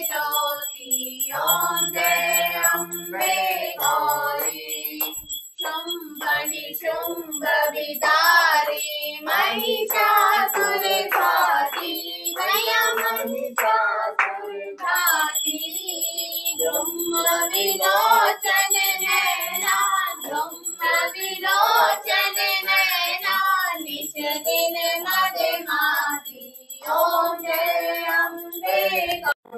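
Hindu aarti hymn sung during a Durga puja, with rhythmic hand-clapping and a small puja bell ringing.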